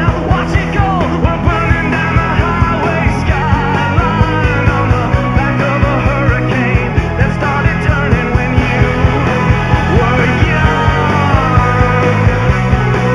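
Rock music with a steady beat and bending melody lines.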